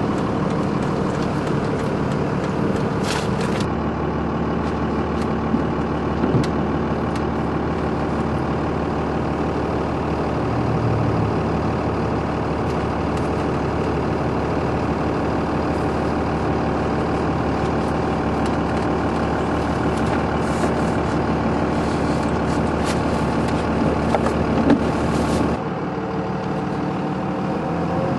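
Car engine and road noise heard from inside a moving vehicle, a steady hum throughout. The tone shifts abruptly twice, a few seconds in and again near the end.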